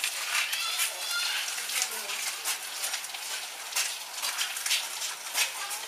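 Indistinct onlookers' voices, including a high, child-like voice near the start and again at the end, over a steady scatter of irregular clicks and crackles.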